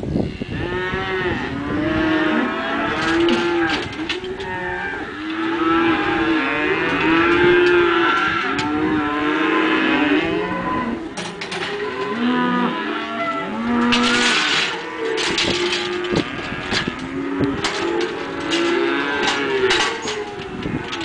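A herd of cattle mooing, many calls overlapping one after another, with a few sharp clicks in the second half.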